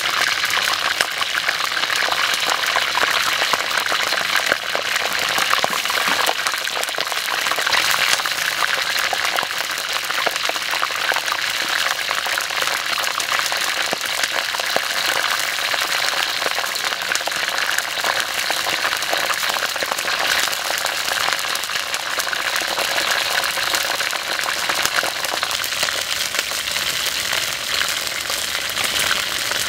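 Whole frogs deep-frying in hot oil in an iron wok: a steady, dense sizzle of bubbling and crackling oil that never lets up.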